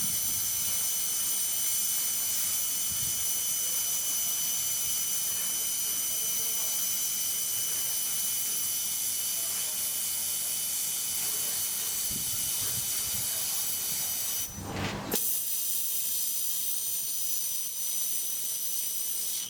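Handheld laser welding machine hissing steadily, a high hiss with faint steady high tones. It cuts out for a moment about fifteen seconds in, with a low knock, then resumes.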